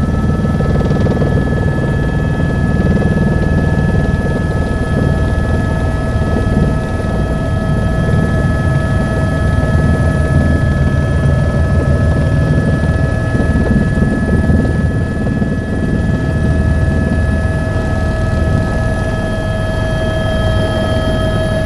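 Helicopter running: a steady, loud low rumble of engine and rotor with a steady high turbine whine over it.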